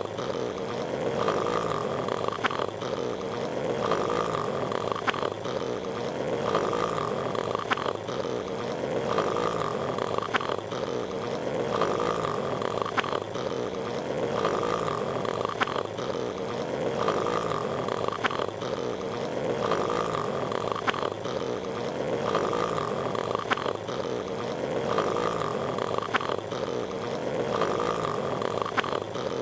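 Patrick Star's cartoon snoring, looped: a raspy snore with a whistle-like tone, repeating in an even rhythm with a faint click about every two and a half seconds.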